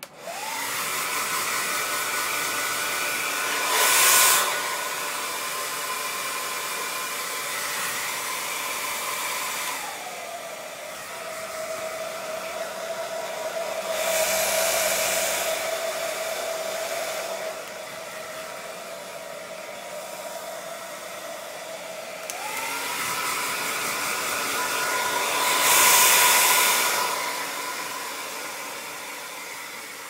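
A 1200 W hand-held hair dryer switches on, its motor whine rising, then runs with a steady rush of air. About ten seconds in its pitch drops to a lower setting, and about twelve seconds later it climbs back up. Three times the rush of air swells louder for a second or two.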